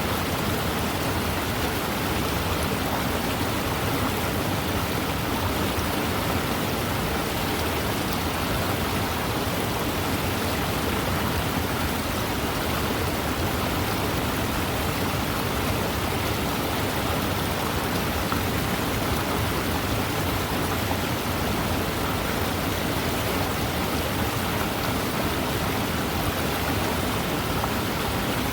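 Waterfall: a steady, unbroken rush of falling water, an even wash of noise with no separate splashes or changes.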